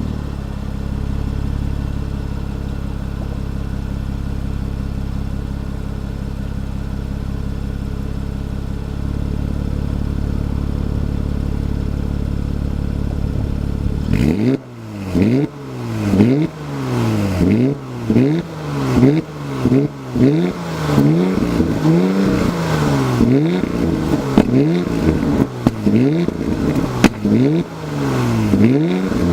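2016 Porsche Cayenne with sport exhaust idling steadily, then, about halfway through, revved in quick blips of roughly one a second, the revs rising and falling with crackles from the exhaust.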